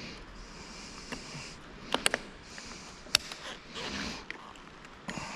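Light clicks and taps of hands handling wiring and plastic parts on a hybrid car's high-voltage battery pack, a quick cluster about two seconds in and a single sharper click about a second later, with a person sniffing or breathing.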